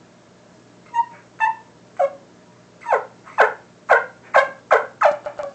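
Homemade wingbone turkey call yelping: three spaced notes, then a faster run of yelps from about three seconds in that crowds together near the end, each note dropping in pitch.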